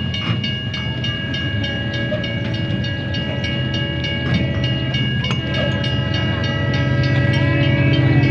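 A small tour train running, with a steady engine drone that grows louder near the end, a steady high whine, and regular clicking about three to four times a second.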